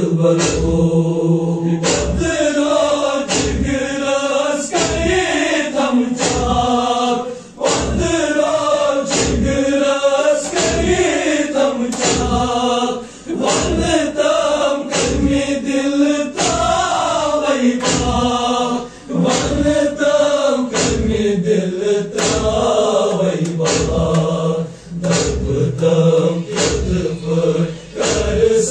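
A group of men chanting a noha, the Shia lamentation chant, in unison with a lead voice, in phrases that break briefly about every six seconds. A steady beat of sharp strikes keeps time under the voices.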